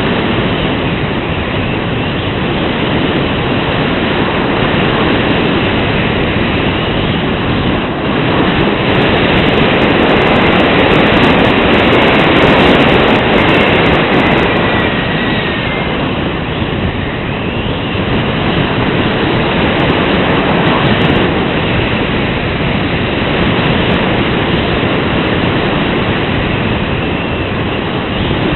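Wind rushing over the microphone: a loud, steady noise that swells and eases, strongest around the middle.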